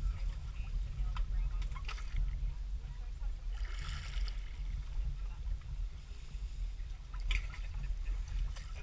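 Seawater sloshing and lapping against a boat's hull over a steady low rumble of water moving around the camera, with short splashes and a longer splash about four seconds in as a shark breaks the surface.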